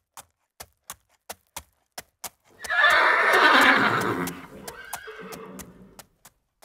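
A horse whinnying once, loud, its pitch falling, over hooves clip-clopping on hard ground about three steps a second.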